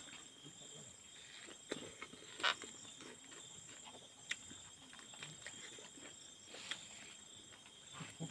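Faint chewing and lip-smacking of a person eating meat off the bone by hand, with scattered wet clicks and a louder smack about two and a half seconds in.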